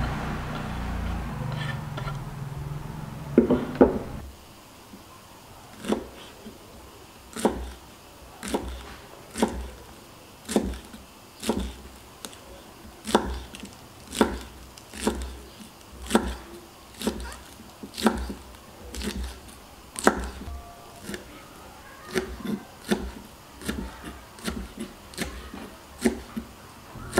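Corn kernels scraped off a wooden board into a glass bowl, ending with a couple of knocks. Then a chef's knife chops spring onions on a wooden cutting board, with sharp knocks of the blade on the board about once a second that come faster near the end.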